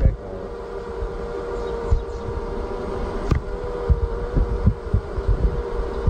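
A honeybee colony humming in an open hive: a steady drone with one held tone. Low thumps rumble on the microphone, and there is a single sharp click about three seconds in.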